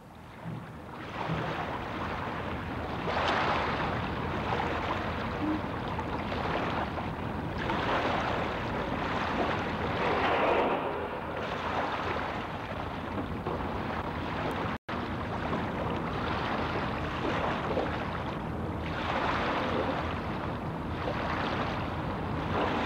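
Waves washing, a rushing noise that swells and fades every few seconds. There is a brief dropout about fifteen seconds in.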